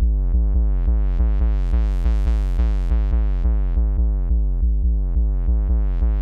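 Electronic music breakdown with the drums dropped out: a repeating synthesizer note, about three pulses a second over a constant deep bass, growing brighter and duller in slow waves.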